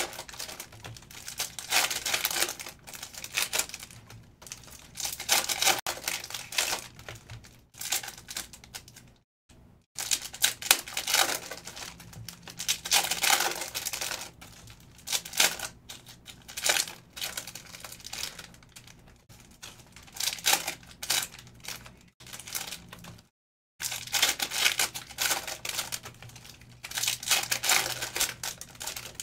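Foil trading-card pack wrappers being torn open and crinkled, one pack after another, in repeated bursts with short lulls between. There are two brief moments of dead silence.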